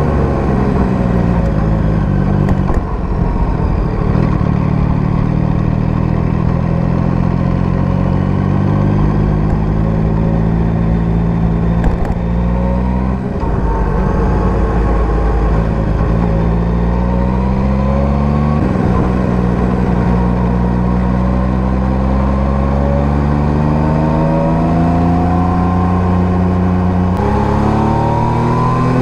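Yamaha MT-09 (third generation) 890 cc inline-three engine breathing through an SC-Project STR-1 exhaust while riding. The revs climb steadily through the gears, with sharp drops at gear changes, including one about two-thirds of the way in and another near the end.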